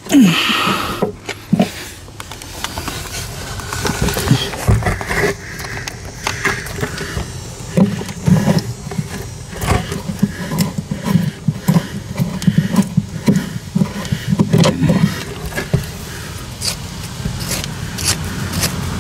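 Irregular clicks, scrapes and knocks of small metal hardware being handled as a brass plug is worked into its fitting in a boat's floor, over a steady low rumble of wind on the microphone.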